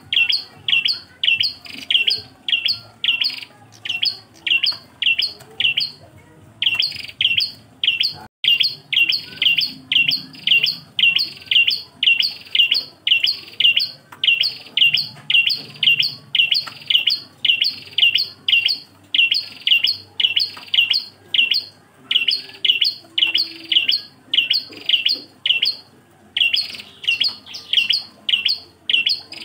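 Ashy tailorbird (prenjak kelabu) repeating one short, sharp chirp over and over, about two a second, with a couple of brief pauses. This is its single-note 'engkel' call, recorded for training cage birds.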